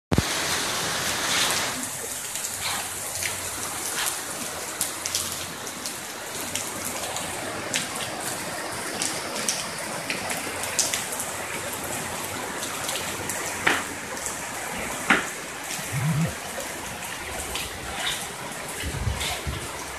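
Heavy rain pouring down: a steady hiss with many sharp splats of drops hitting surfaces.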